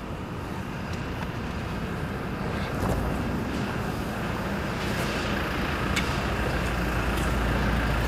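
Toyota Fortuner diesel's four-cylinder turbodiesel engine idling steadily, growing gradually louder. It has the rough diesel sound that is normal for this engine.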